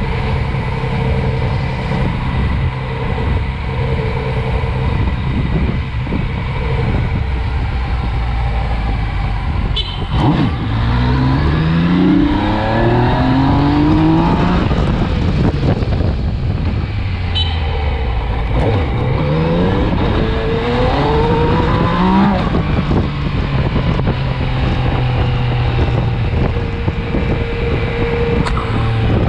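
Yamaha MT-09's inline-three engine heard close up from the tank while riding: running steadily at low speed at first, then accelerating with its pitch rising through the gears about ten seconds in, and again around nineteen seconds, before settling back to a steady run.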